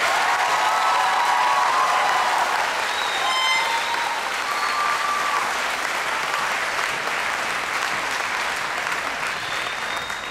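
Audience applauding after a speech, with cheering shouts over the clapping in the first couple of seconds; the applause thins toward the end.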